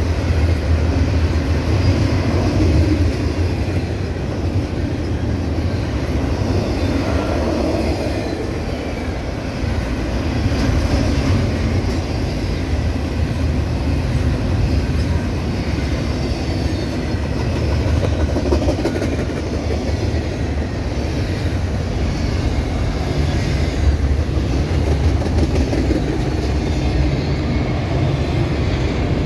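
Double-stack container well cars of a passing intermodal freight train: a steady rumble and clatter of steel wheels on the rails.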